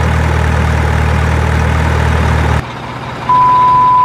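Steady truck engine running at idle, cutting off abruptly about two and a half seconds in. Near the end a single steady, pure beep tone.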